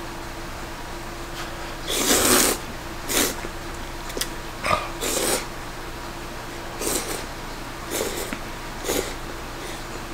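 A person slurping ramen noodles with chopsticks: about seven short slurps, the loudest about two seconds in, over a faint steady hum.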